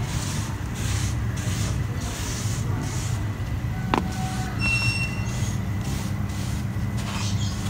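A wide bristle paint brush swept in repeated short strokes across a dusty concrete floor, each stroke a dry brushing hiss, over a steady low hum. A single sharp click comes about four seconds in.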